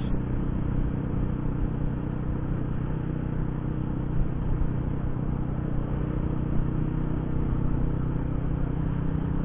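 Yamaha Jupiter Z1 underbone motorcycle's small four-stroke single-cylinder engine running steadily while cruising, over a constant rush of wind noise, heard through a Bluetooth helmet-intercom microphone.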